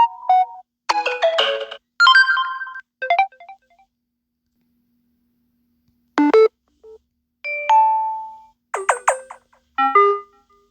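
Samsung Galaxy A50 phone playing a series of short electronic alert tones one after another: brief chimes and plucked-note jingles, each about a second long or less, with a pause of about two seconds midway.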